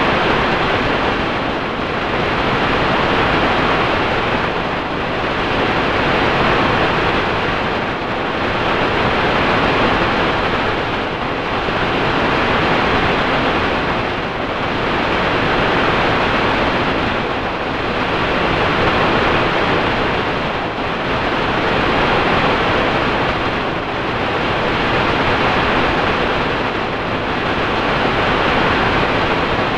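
Steady rushing noise that swells and eases in a regular cycle about every three seconds.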